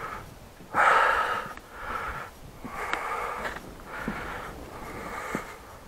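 A person breathing heavily close to the microphone, about one breath a second, the first one the loudest.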